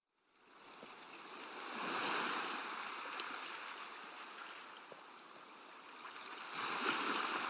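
Rushing, water-like noise that fades in from silence and swells twice, about two seconds in and again near the end.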